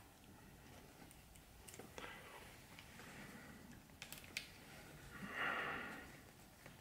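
Faint clicks and ticks of a mini Phillips screwdriver turning a small screw into the metal clip of a headphone headband strap, with a breath through the nose about five seconds in.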